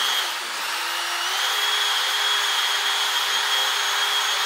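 Small handheld power polisher running steadily with a high whine as it polishes a sanded wheel rim. Its pitch steps up slightly about a second in.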